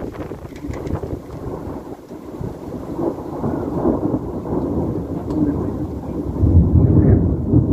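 Thunder rumbling during a night thunderstorm, growing louder about halfway through and loudest near the end.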